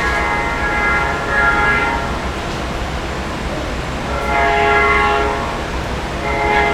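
Nathan Airchime K5LA five-chime locomotive air horn blown in three blasts. The first is already sounding and ends about two seconds in, a second lasts just over a second near the middle, and a third starts near the end. All three play the same multi-note chord.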